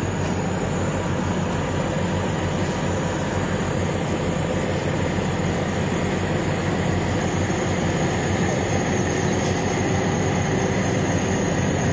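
Steady vehicle noise: a continuous low rumble under an even hiss, level throughout, with no distinct events.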